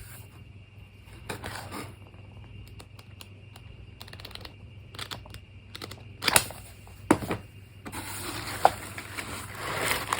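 Hands handling items from an unboxing, likely a journal being shown: scattered light clicks, taps and scrapes, a few sharper ticks past the middle, and rustling that builds near the end.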